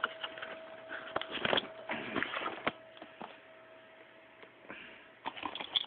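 Scattered clicks and rustling of a box of ketone test strips being handled, busiest in the first three seconds and again near the end, over a faint steady hum that stops about three seconds in.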